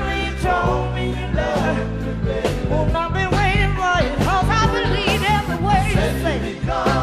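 Live soul-rock band playing, with bass, drums and guitar under a lead vocal sung with heavy vibrato.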